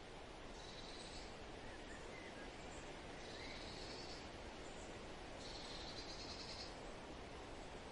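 Faint outdoor ambience: a steady hiss with a high, buzzing trill about a second long that comes three times, every two to three seconds.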